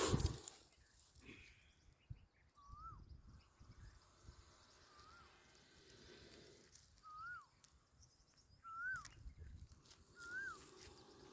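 A bird calling a short whistled note that rises then falls, repeated about every two seconds. The loudest thing is a brief loud rush of noise right at the start.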